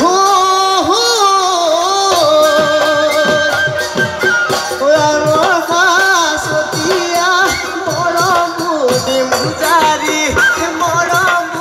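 Live Bihu folk music: a wavering melody in long, bending notes over steady drum strokes.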